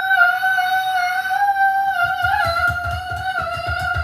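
A girl singing one long, high held note that wavers slightly. From about halfway through, soft rapid low thumps run under it, about four or five a second.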